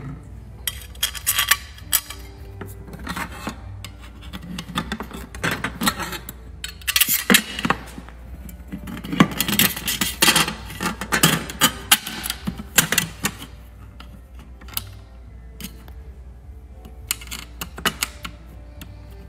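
Sheet-metal brackets clattering and knocking against each other and a plastic toolbox lid as they are lined up and pressed into place by hand: irregular clicks and clanks, with a few louder knocks.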